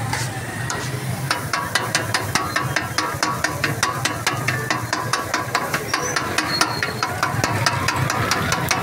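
Metal spatula clanking rapidly on a steel griddle, about five ringing strikes a second, starting about a second in, over a steady low hum.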